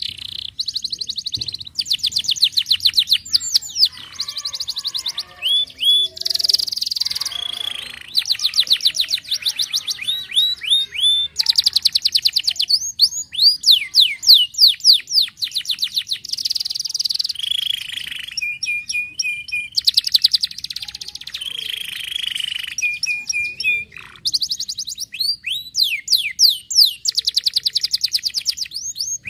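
Domestic canary singing a long, continuous song: phrases of fast trills made of rapidly repeated notes, rising whistled sweeps, and a few short held notes, with only brief gaps between phrases.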